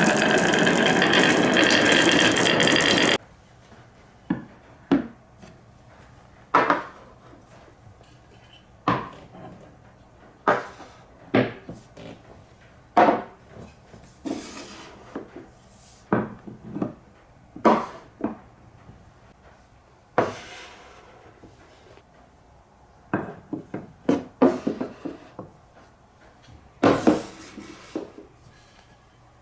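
Marbles running down a marble run. A loud, dense rush of rolling and clattering for about the first three seconds cuts off suddenly, then separate sharp clacks and knocks come every second or so as marbles drop and hit the track, with quieter rolling between them.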